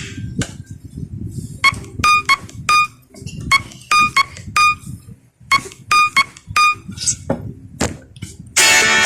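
Phone ringtone: a synthesized keyboard melody of short, bright notes in a four-note phrase, repeated about every two seconds over a low accompaniment. A different, fuller ringtone tune cuts in just before the end.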